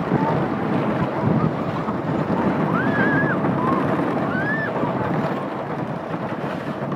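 Wind buffeting a phone's microphone over the rumble of a wooden roller coaster train running on its track, easing slightly in the last couple of seconds.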